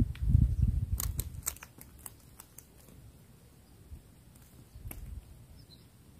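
Close handling noise from a fisherman's hands working his hook and line: a low rustle at the start, then a quick run of small sharp clicks about a second in and a few more near the end.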